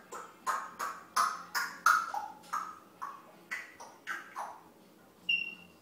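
African grey parrot giving a rapid string of short calls, about three a second, each dropping in pitch, then a brief high whistle near the end.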